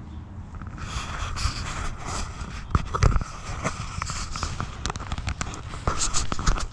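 Tall grass and weeds rustling and crackling against legs and the camera while walking through them, with a dense run of irregular snaps and a heavier footstep thud about three seconds in. It cuts off suddenly near the end.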